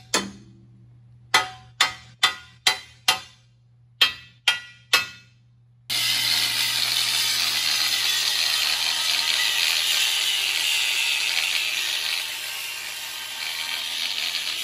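A steel hammer striking a steel winch-mount bracket, nine ringing blows in two quick runs. About six seconds in, an angle grinder cutting steel takes over: a steady loud grind.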